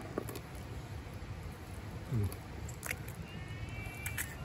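A raw egg cracked and dropped onto rice in an aluminium mess tin, heard as a few short taps and clicks. A short, low, falling sound comes about two seconds in, and just after three seconds a beagle gives a thin, high whine lasting about a second.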